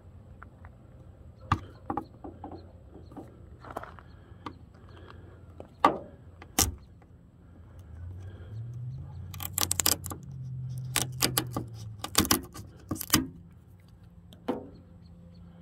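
An adhesive-backed plastic emblem being pried off a pickup's sheet-metal cab panel with a flat pry tool: scattered scrapes and clicks, then a quick run of sharp clicks and snaps in the second half as the emblem comes free. A low hum swells in the middle.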